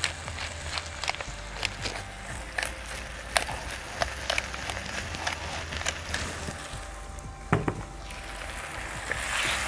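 Hand-held pepper mill grinding over a wok: a run of irregular small cracks and clicks as the peppercorns are crushed, over a low wind rumble on the microphone. There is a brief low knock about three-quarters of the way through, and near the end the frying sizzle from the wok swells.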